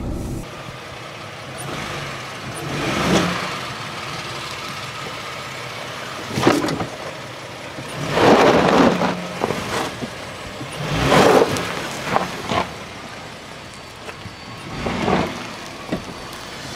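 Ford Explorer crawling over a rocky dirt trail: engine running under a steady low hum, rising and falling in several swells, with tyre and gravel noise.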